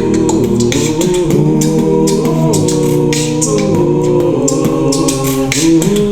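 A cappella gospel vocal group singing in close harmony: several voices holding and shifting chords, with a steady beat of sharp percussive clicks over them.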